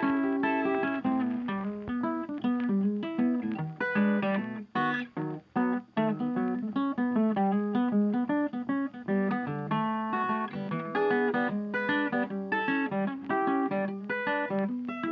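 Background music: plucked acoustic guitar, picked and strummed.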